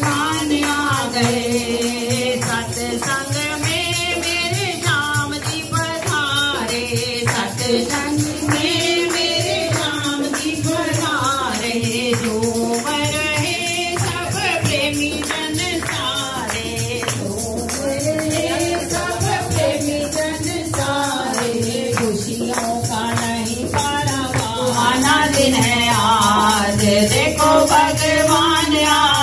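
Hindi devotional bhajan sung by a group of voices, with steady jingling percussion and clapping keeping the beat.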